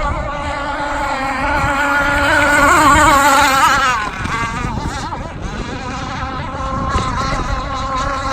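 Zenoah 29.5 two-stroke gas engine of an R/C outrigger racing boat running at speed, its note wavering as the boat runs across the water. It grows louder to a peak about three seconds in, then drops back as the boat moves off.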